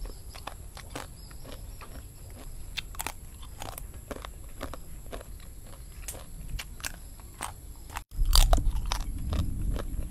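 Crisp fried banana chips being bitten and chewed close to a lapel microphone: a run of small sharp crunches and clicks. After a short break about eight seconds in, the crunching is louder, with a low rumble under it.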